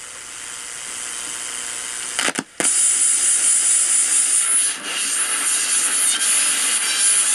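RCA AR-77 shortwave receiver's speaker giving out static hiss with no station coming through, swelling slowly, then cutting out for a moment about two and a half seconds in and coming back louder with a thin high whine over it. The dropout is the intermittent cutting-out the set has shown, cause not yet known.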